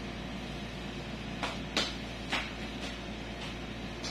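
Metal nail pick scraping under a fungus-damaged toenail: a few short, sharp scrapes, the loudest around the middle, over a steady low hum.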